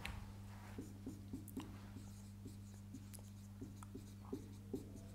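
Marker pen writing on a whiteboard: a string of faint short strokes and taps as a word is written, over a steady low hum.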